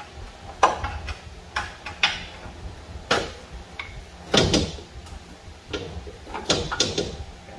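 Irregular metal knocks and clanks of hand tools against a car's front suspension parts, about seven sharp hits with short ringing.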